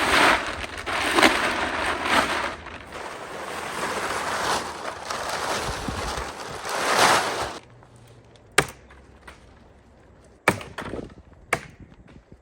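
Large OSB sheathing panels being slid and dragged, a rough scraping in several swells, then three sharp knocks of wood.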